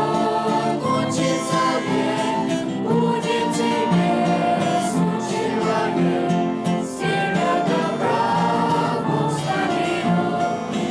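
A choir singing a Russian-language hymn with instrumental accompaniment, several voices holding and moving between sustained notes.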